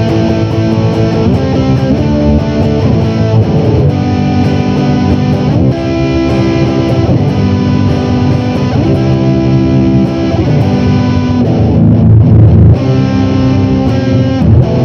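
Electric guitar played through a Marshall GV-2 Guv'nor Plus overdrive pedal into a clean amp, with gain and bass turned all the way up and the mids cut off. Thick, distorted chords ring out and change every second or two, and are briefly damped near the end.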